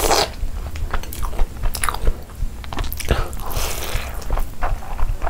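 Close-miked eating: biting into a boiled egg and chewing a handful of mandi biryani rice, with short wet clicks and smacks of the mouth at irregular moments.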